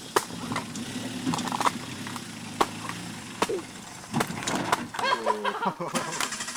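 Suzuki Samurai 4x4 engine running at low revs as it crawls over rocks, with sharp knocks and clacks from tyres and chassis striking rock about once a second. The engine revs up and down briefly about five seconds in.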